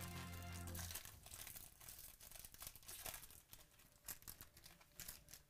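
Foil trading-card pack wrapper crinkling and tearing as it is pulled open by hand, a quiet, irregular crackle.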